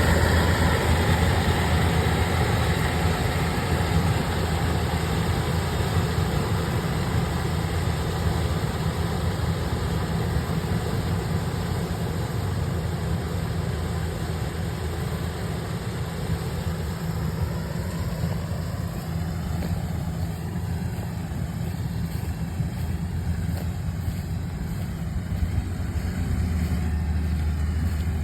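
Kubota ER467 combine harvester running steadily during rice harvesting: a low engine drone under a busy mechanical clatter. The higher clatter thins out about two-thirds of the way through and the drone grows louder again near the end.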